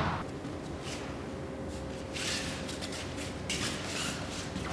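Uniform cloth rustling and bare feet shuffling on training mats, with short swishes about two and three and a half seconds in, over a faint steady hum.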